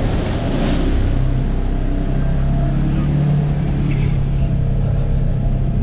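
Polaris Ranger 1000 side-by-side's twin-cylinder engine running under way, steady and loud, its note rising a little around the middle. Brief clatters about half a second and four seconds in.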